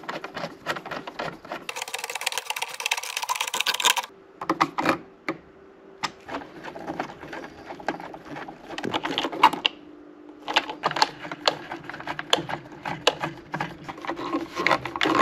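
Hand screwdriver driving the taillight mounting bolts back in, giving runs of rapid clicking with short pauses between them. A burst of hiss lasts about two seconds, starting about two seconds in.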